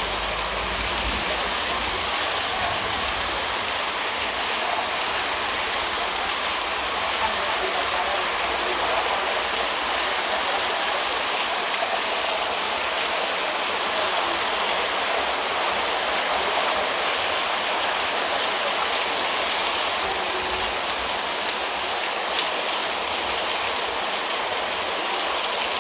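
Heavy rain falling steadily, an even hiss of downpour on surfaces.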